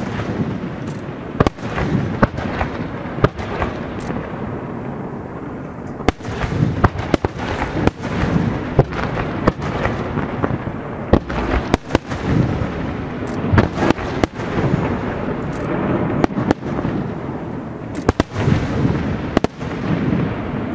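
Aerial fireworks shells bursting one after another, sharp bangs every second or so over a steady low rumble, coming thicker from about a third of the way in.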